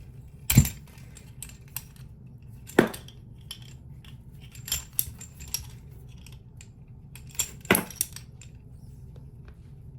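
Wrench clinking and clanking against the bidet's inline T-adapter fitting as it is tightened, a few sharp metallic knocks at irregular intervals, the loudest about half a second in and a cluster near the end.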